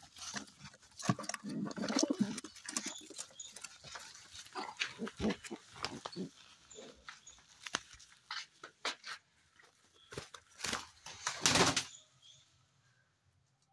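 Jet black Saharanpuri pigeons in a loft: a low pigeon coo about two seconds in, among many short knocks, scuffs and rustles from handling at the nest box. Near the end there is a louder, longer rustling burst of about a second.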